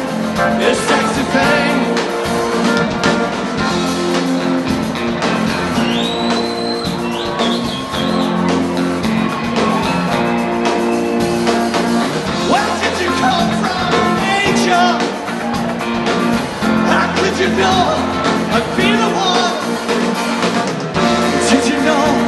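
Live rock band playing a song: electric guitars and drum kit with a lead singer and backing vocals.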